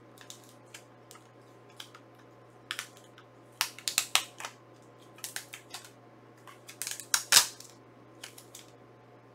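Blu-ray packaging being handled and taken apart: scattered clicks, taps and rustles of plastic case and cardboard slipcover, in two busier flurries about four and seven seconds in, the loudest sharp click near seven and a half seconds.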